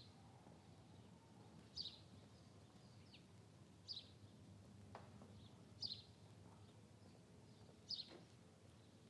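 A bird repeating a short, high chirp about every two seconds, five times, over a faint, steady low hum.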